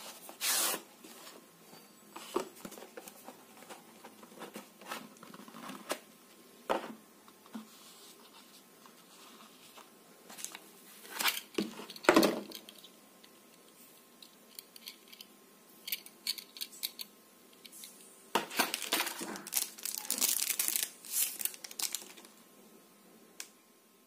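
Unboxing handling noise: a cardboard gift box and its packaging sliding, rubbing and crinkling, with scattered light clicks and knocks as a metal keyring and a pen are handled. The loudest knock comes about halfway through, and a longer stretch of rustling comes about three quarters of the way in.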